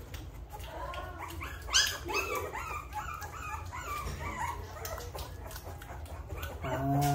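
Three-week-old American bully puppy whining in a run of short, high-pitched cries, the loudest about two seconds in, dying away after about five seconds.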